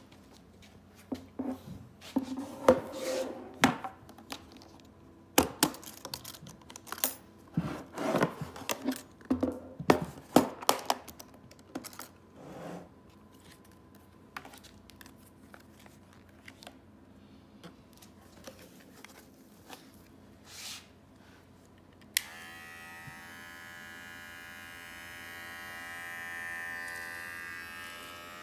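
Clicks, knocks and rustling as the latches of an aluminium carry case are opened and its contents and a paper card are handled. About two-thirds of the way in, a cordless metal hair clipper clicks on and runs with a steady electric buzz.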